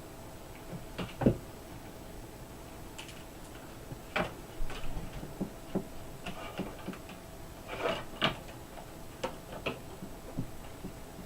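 Scattered clicks and knocks of hands handling a laptop and its power supply. One sharp knock comes about a second in, and clusters of clicks come around four and eight seconds in.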